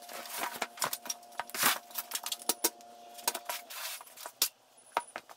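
Steel frame of an OTC Stinger motorcycle lift being lifted out of its cardboard box and stood on end: a quick run of metal clanks, knocks and rattles, the loudest about a second and a half in.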